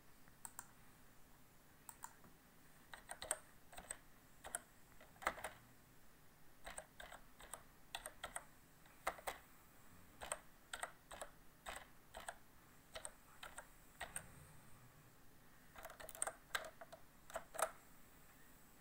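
Computer keyboard being typed on: sharp key clicks in short, irregular runs, with a pause of a second or two before a last quick run near the end.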